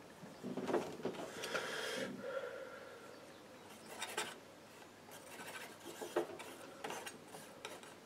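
Palette knife scraping and working oil paint on a palette: a run of rasping scrapes in the first two seconds, then several shorter ones.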